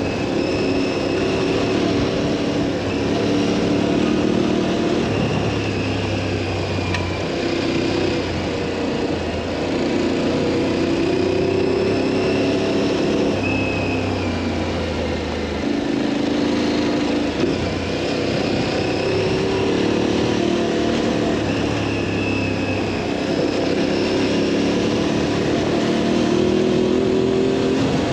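Adventure motorcycle's twin-cylinder engine running under way, the revs rising and falling with throttle and gear changes every few seconds, over steady wind and riding noise.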